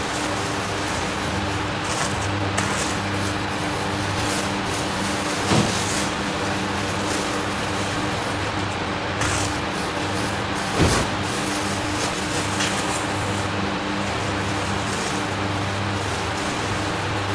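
Steady low machine hum throughout, with a few short crinkles and knocks as steamed rice cakes are slipped into plastic bags.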